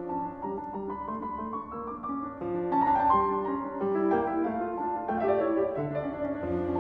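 Instrumental background music led by piano, playing a melody of separate notes.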